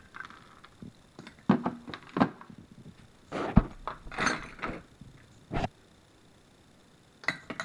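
Metal sockets and wrenches clinking and knocking in a plastic socket-set case as a macaque rummages through them, in a handful of separate knocks and clatters.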